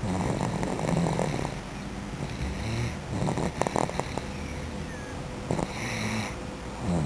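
A sleeper snoring: rough, noisy breaths recurring every couple of seconds.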